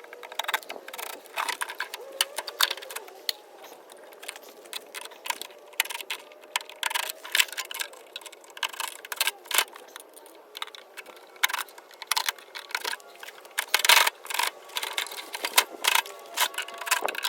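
Irregular metallic clicks, clinks and light knocks of hand tools and loose metal parts as a tankless water heater is taken apart for scrap.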